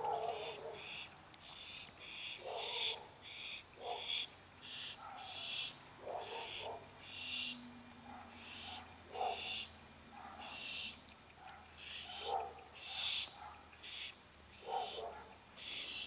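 Barn owl nestlings giving their raspy, hissing food-begging calls, short bursts repeating about once or twice a second and overlapping one another, as they wait to be fed.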